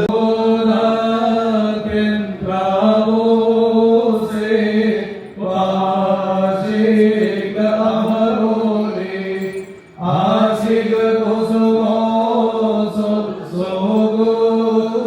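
Male voice chanting a liturgical hymn of the Malankara Orthodox service in long held phrases, pausing briefly for breath twice.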